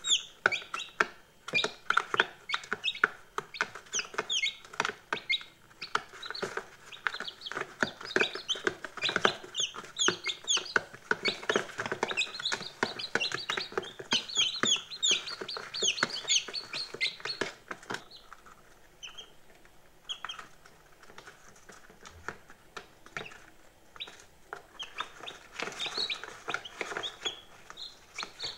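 A brood of day-old chicks peeping: many short, high peeps overlapping thickly, thinning to scattered calls for several seconds after the middle, then building again near the end.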